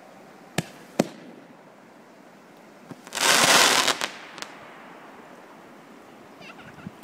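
Fireworks going off: two sharp bangs in the first second, then a loud hiss lasting about a second as a firework streaks across the sky trailing sparks, followed by a small pop and faint crackling.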